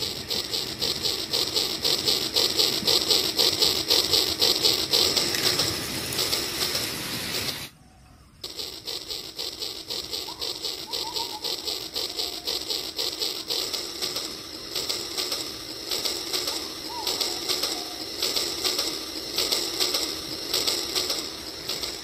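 Rail King remote-control toy train running, its small motor and plastic gears whirring with a fast, even ticking. The sound drops out briefly about eight seconds in.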